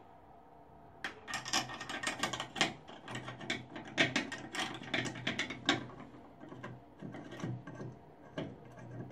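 Bathtub overflow cover plate and trip lever being handled and fitted to the tub wall. It makes a rapid, irregular run of clicks and rattles that starts about a second in.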